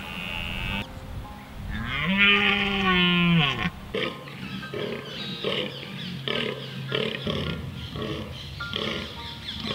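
A red deer stag roars once, a long call that rises, holds and falls in pitch. A fallow buck then groans in a rapid series of short calls, about two a second. These are rutting calls, warning rival stags and advertising the male's size.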